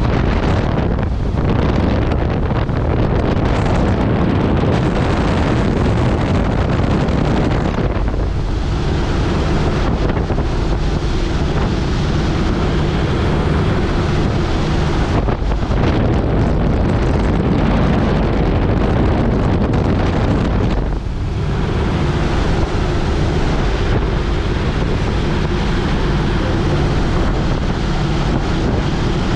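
Raj Hamsa X-Air Hanuman ultralight's engine and propeller running steadily on approach, heard from inside the open cockpit with heavy wind rushing over the microphone. The sound lulls briefly about twenty seconds in.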